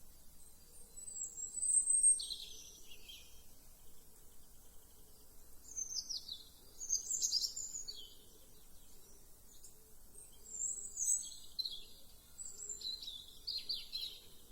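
Songbird singing in short, high, chirping phrases that sweep downward, in three bouts a few seconds apart: about a second in, around six seconds in, and again from about ten seconds in.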